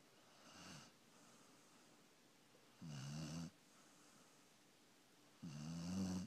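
Dalmatian puppy snoring in its sleep: a soft breath, then two louder pitched snores about two and a half seconds apart, each under a second long.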